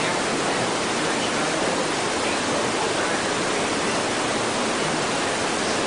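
A steady, even hiss with nothing else over it.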